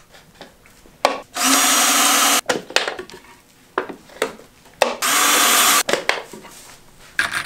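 Cordless drill with a pocket-hole bit boring through a Kreg pocket-hole jig into a wooden strut, two runs of about a second each. Clicks and knocks from handling the jig and board come between the runs.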